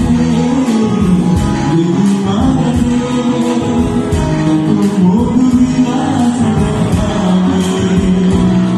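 Live band playing, with a singer over electric guitars and drums.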